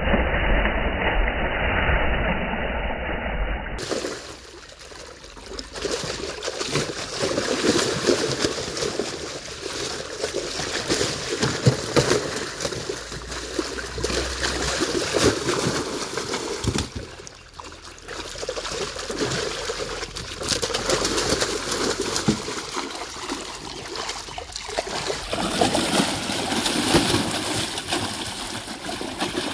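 Big fish thrashing in the water-filled hold of a small boat: loud, irregular splashing and sloshing with sharp slaps of water, continuing in surges.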